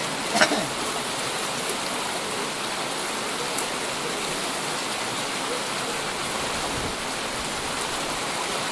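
Steady rushing of flowing river water, with one short sharp knock or splash about half a second in.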